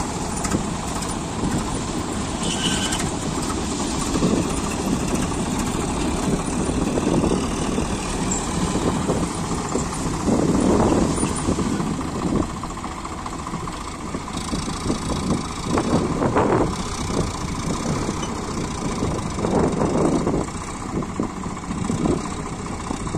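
Swaraj 855 FE tractor's three-cylinder diesel engine running under load as it pulls a trolley heaped with soil, the engine note rising and easing a few times.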